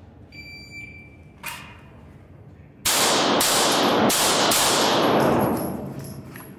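A shot timer's electronic start beep, then a rapid string of about five pistol shots roughly half a second apart, ringing on in the echo of an indoor range.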